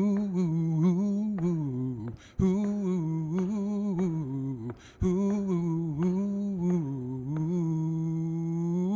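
A man's voice humming a wordless melody, unaccompanied, in three phrases, the last ending on a long held note.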